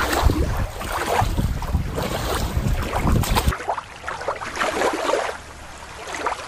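Wind rumbling on the microphone over water lapping in the shallows. About three and a half seconds in, it cuts off abruptly to a quieter background ambience.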